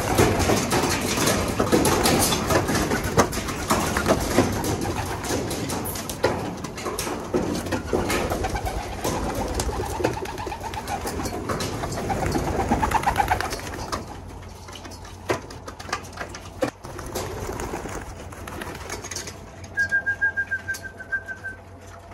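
Pigeons cooing, with clattering and rustling for the first two-thirds or so. There is a short, high whistle-like note near the end.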